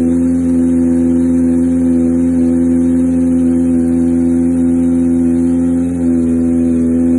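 Kawasaki ZX-25R 249 cc inline-four running through a LeoVince Factory S titanium exhaust, held at steady revs with a brief dip about six seconds in.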